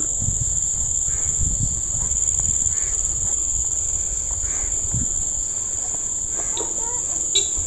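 Insects droning with a steady high-pitched buzz, over a low rumble, with faint voices near the end.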